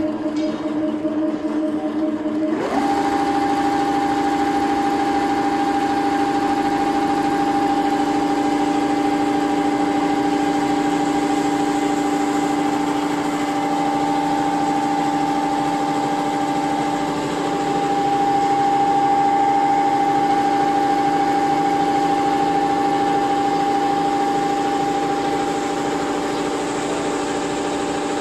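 Richpeace computerized multi-head sewing and perforation embroidery machine running, its needle heads stitching a diamond quilting pattern into thick padding. A steady mechanical hum that rises in pitch about three seconds in as the machine comes up to speed, then holds steady.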